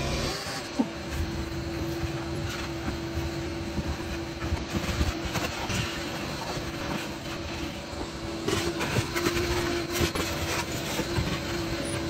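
Vacuum cleaner running with a steady whine as its hose sucks dirt and debris off a car's floor carpet, grit clicking and crackling up the hose.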